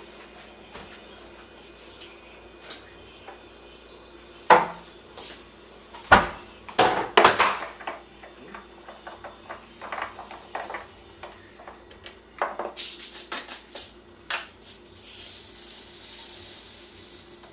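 Kitchen clatter of dishes and utensils being handled: a few sharp knocks and clinks about four to seven seconds in, then a quick run of clicks, then a couple of seconds of hiss near the end.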